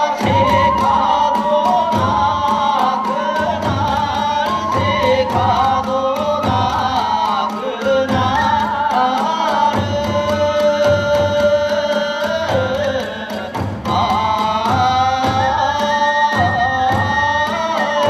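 Kagura hayashi music: drums and hand cymbals beating a fast, dense rhythm under a wavering melody line.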